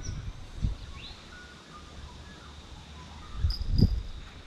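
Faint bird chirps, then about three and a half seconds in a bite bell on a fishing rod rings twice briefly as a fish takes the bait, with dull knocks under the rings.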